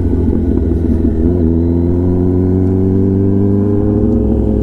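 Kawasaki ZX-10R inline-four engine running through an SC-Project exhaust under way; its pitch dips briefly about a second in, then climbs steadily as the bike accelerates.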